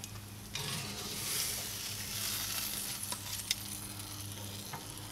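Hot grilled ribeye sizzling as it is lifted off the grill grate and set on a metal sheet tray, a soft high hiss with a few light clicks of metal.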